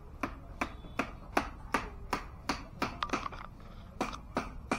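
Hammer blows, a quick steady series of sharp ringing knocks at about three a second, with a short break about three and a half seconds in.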